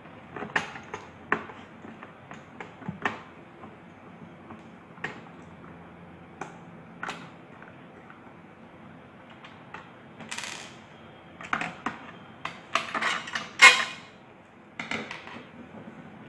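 Hands taking apart a plastic electric iron: scattered clicks, taps and short scrapes of the plastic housing and the cord being handled. About three-quarters through comes a denser run of louder clicks and scrapes as the rear cord cover is worked loose.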